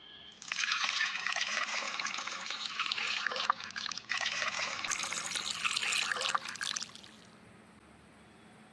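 Water splashing and trickling, in two runs of about three seconds each with a brief break between them. It starts suddenly and cuts off near the end, leaving a faint hiss.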